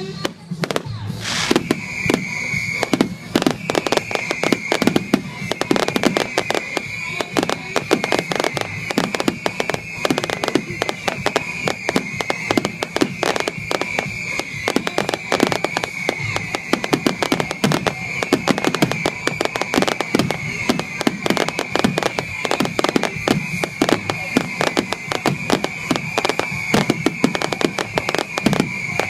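Fireworks finale: a dense, continuous barrage of rapid explosions and crackling shells. A steady high tone runs underneath from about two seconds in.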